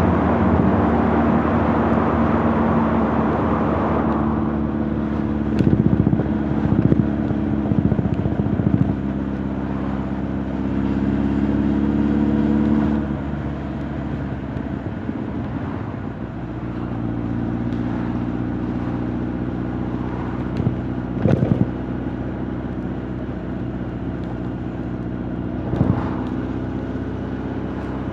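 Honda CB1300 Super Bol d'Or's inline-four engine and exhaust running under way, a steady engine note that climbs slightly and then drops back about halfway through. A few short sharp sounds stand out over it, near the middle and again toward the end.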